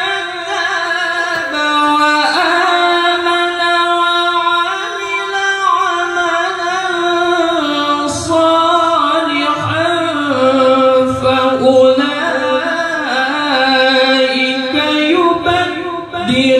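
A young male qari's voice reciting the Quran in the melodic, high-pitched tilawah style into a microphone. He holds long notes with wavering ornamental turns and moves to a lower pitch about two-thirds of the way through.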